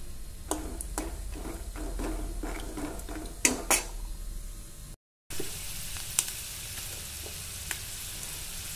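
Raw peanuts frying in oil in a metal kadai, stirred with a steel slotted spoon that clinks and scrapes against the pan, with two sharper clinks about three and a half seconds in. After a brief break in the sound about five seconds in, hot oil sizzles more steadily with a few ticks.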